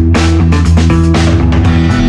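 Background rock music with electric guitar and bass over a steady drum beat.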